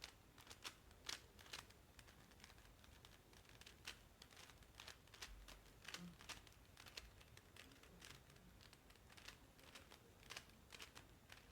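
Faint, irregular plastic clicks and clacks of a MoYu speedcube's layers being turned rapidly during a solve, several a second.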